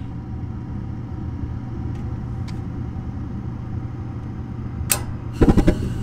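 Gas furnace's inducer motor running with a steady hum during a normal ignition sequence. About five seconds in, the gas valve clicks open once, and the burners then light with a sudden burst of low rushing noise.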